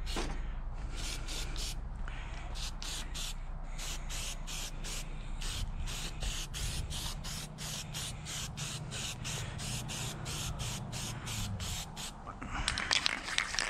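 Aerosol can of safety-red spray paint hissing in quick short bursts, about two to three a second, as a chainsaw fuel tank is coated. Near the end it gives one longer continuous spray.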